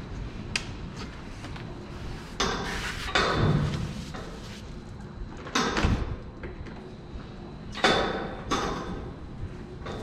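Knocks, rattles and scrapes of handling work in a milking parlour. Three louder bouts come about two and a half, five and a half and eight seconds in, over a steady low background hum.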